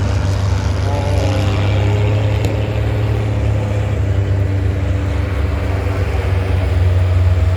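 Pro Farm class pulling tractor's diesel engine running steadily at full load during a pull, a loud, unbroken low drone.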